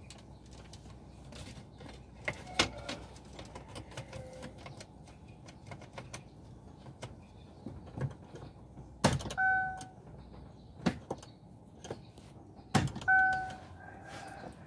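Plastic shift-lever trim and the automatic gear lever of a Chevrolet being handled and pressed into place: scattered light clicks and knocks, with two sharp knocks about four seconds apart, each followed at once by a short beep.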